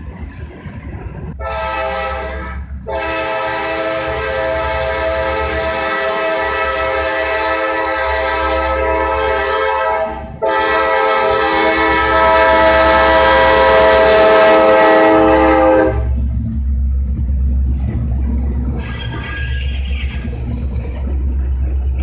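Kansas City Southern de México diesel freight locomotive sounding its multi-chime air horn: one short blast, then two long ones with a brief break between them. It is followed by the deep rumble of the locomotives and the rattle of the cars as the train passes close by.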